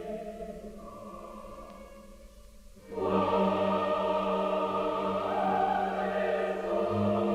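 Choral music with sustained voices: a quieter, thinning passage that swells suddenly into a fuller, louder chord about three seconds in, held to the end.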